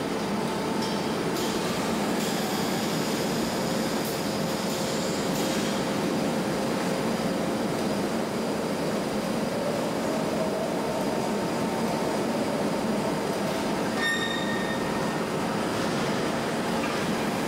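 Steady running noise of a gas-cylinder production line's conveyor and machinery, an even mechanical rumble with a faint steady hum and a short click about fourteen seconds in.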